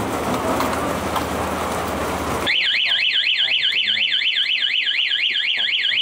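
Aftermarket motorcycle anti-theft alarm going off: a loud electronic siren sweeping rapidly up and down, about five times a second. It starts suddenly after a couple of seconds of steady noise. The alarm is triggered by the ignition switch being forced with a tool instead of the proper key while the alarm is armed.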